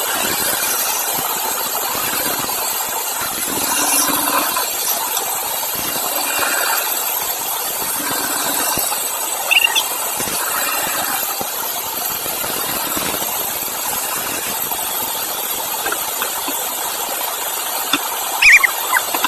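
Sawmill saw cutting through wood, a steady noisy running sound, with a few short high squeaks about halfway through and near the end.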